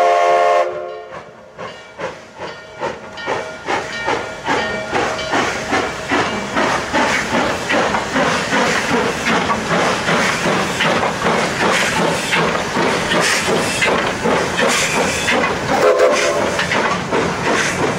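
Durango & Silverton K-36 steam locomotive No. 486 pulling away. Its whistle cuts off about half a second in, then the exhaust chuffs start slow and quicken steadily as it gathers speed, with steam hissing from the cylinders.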